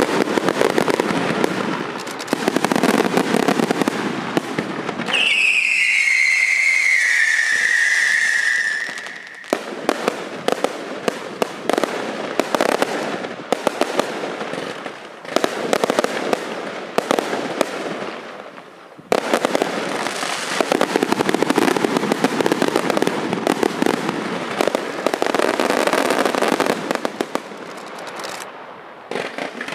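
Daytime colored-smoke fireworks crackling and popping in dense, rapid volleys. From about five to nine seconds in, the crackle drops away under one long whistle that falls in pitch, and then the crackling resumes.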